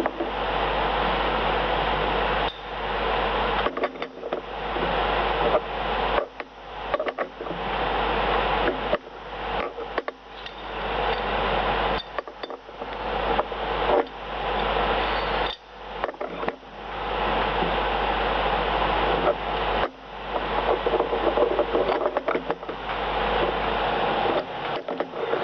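Metal lathe running with a steady, noisy whir and low hum, broken again and again by short, abrupt drops.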